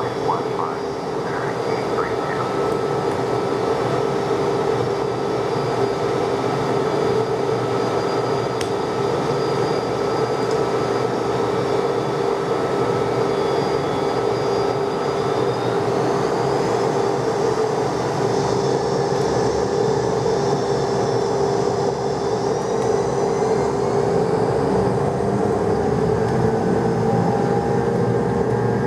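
McDonnell Douglas DC-10 jet engines running with a loud, steady drone. In the second half several tones rise in pitch as the engines spool up for the takeoff.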